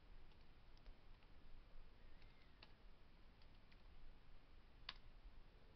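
Near silence with a few faint, scattered computer keyboard clicks, the clearest one near the end.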